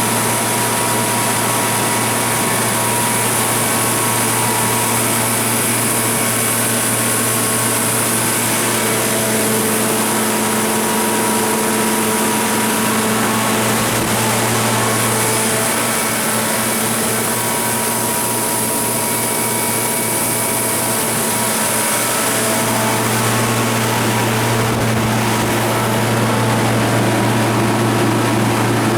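Kohler 100 kW natural-gas standby generator set with its Ford LSG-875 engine running at a steady speed, a constant engine drone with a strong low hum.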